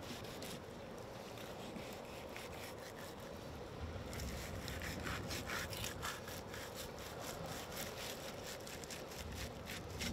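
Faint scraping of a dull fillet knife sawing between the skin and flesh of a striped bass fillet on a wooden table. The short, irregular strokes grow louder and closer together about four seconds in.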